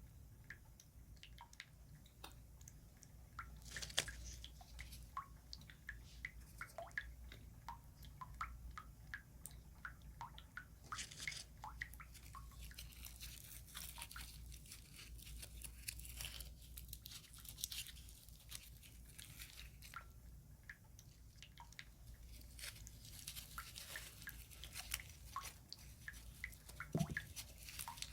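Water dripping in small, scattered drops, with stretches of denser wet crackling and squishing in the middle and again near the end.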